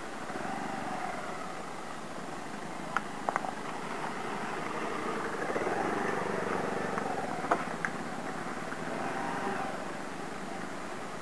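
Motorcycle engines running at low revs as the bikes are eased down a rough, muddy trail, swelling a little around the middle. A few sharp clicks or knocks about three seconds in and again a little past the middle.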